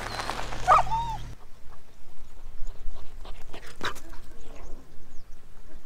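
Farm dogs yelping and whining in short high calls, over a steady low hum that stops about a second and a half in; after that, quieter scattered clicks and small yips.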